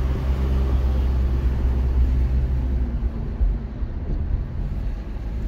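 Low, steady drone of a Mitsubishi Pajero iO's 2.0-litre petrol engine and tyres while driving, heard inside the cabin. The rumble eases a little about three and a half seconds in.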